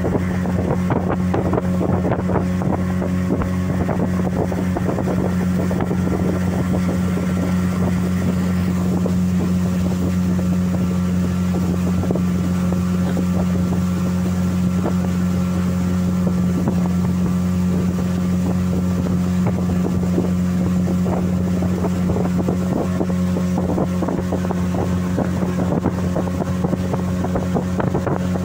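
Outboard motor of a small open fibreglass boat running at a steady cruising speed, an even, unchanging hum, with wind buffeting the microphone and water rushing past the hull.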